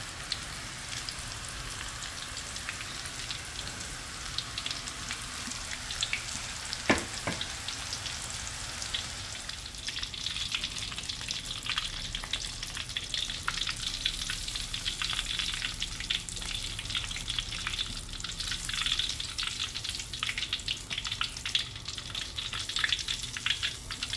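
Coated enoki mushroom bundles deep-frying in hot oil in a steel wok: a steady sizzle with dense crackling that grows busier about ten seconds in. One sharp tap about seven seconds in.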